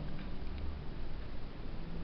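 Faint steady hiss and a low hum, with a few light ticks.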